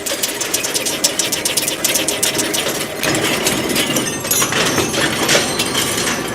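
Heavy metal-cutting machine running, with a rapid even clicking of about ten strokes a second over a machine drone; the sound changes and grows fuller about three seconds in.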